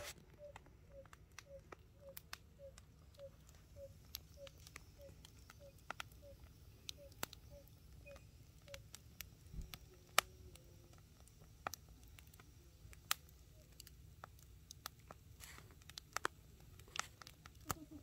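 A bird repeats one short, even note about twice a second through the first half. Then a wood fire of split logs crackles, with scattered sharp pops.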